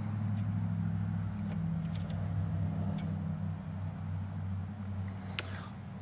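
A handful of sharp little metal clicks and taps as steel digital calipers are closed on and handled against a band sawmill blade, over a steady low hum.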